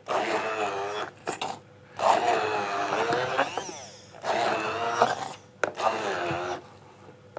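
Bamix immersion blender puréeing chickpeas with tahini and lemon juice into hummus, run in about four short bursts with pauses between them, its pitch shifting as the blade works through the thick paste.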